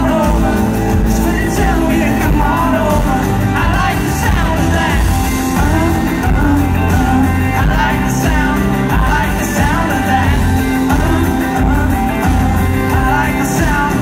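Live country-pop band playing: a lead singer over acoustic and electric guitars and drums, with a heavy low end, heard from within an arena crowd.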